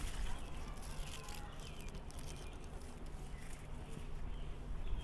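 Faint rustling and crinkling of the thin foil and separator layers of a laptop battery's lithium-ion cell being unrolled and pulled apart by hand.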